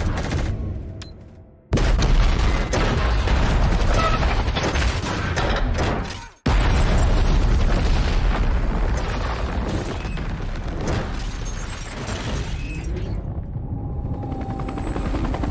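Film sound of a huge explosion. A sudden loud blast about two seconds in, then a second blast after a brief cut-out about six seconds in, each followed by a long rumble. The rumble dies away and a faint steady tone is left near the end.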